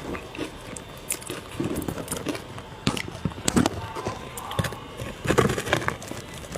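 Ice dusted with matcha powder being bitten and chewed close to the microphone: a run of irregular sharp crunches and crackles, the heaviest bites a little past the middle and near the end.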